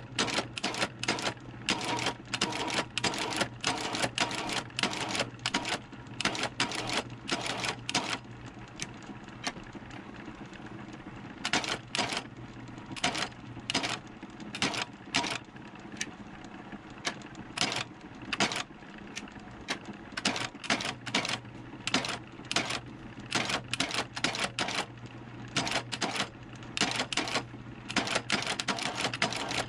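Landis Blake (McKay) stitching machine sewing through a leather sole: sharp clacks, one per stitch, at two to three a second in runs broken by short pauses as the sole is turned, over the steady hum of the machine's motor.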